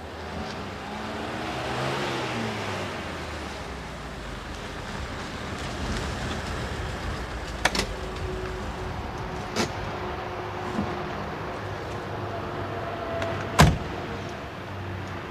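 Car engine running as the car drives up and slows to a stop, its pitch rising and falling. A couple of clicks follow as the driver's door is opened, and a car door slams shut near the end, the loudest sound.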